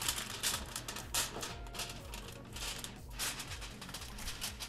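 Aluminum foil crinkling and crackling in a run of irregular rustles as hands press and crimp it tightly around the rim of a casserole dish.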